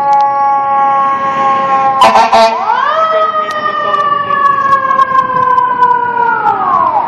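Fire engine's mechanical siren, loud and close. It first coasts slowly down in pitch. About two seconds in comes a cluster of short, sharp blasts, then the siren winds back up to a high wail that slowly sags and drops away near the end.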